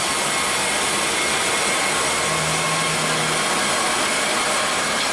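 MEBOR HTZ 1300 PLUS horizontal band sawmill running: a steady, loud machine noise with a strong hiss, and a short low hum about halfway through.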